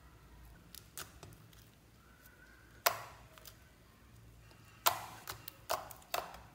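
White slime being stretched, folded and pressed by hand, giving sharp wet clicks and pops from trapped air, a few at first and several close together in the last couple of seconds, the loudest about three and five seconds in.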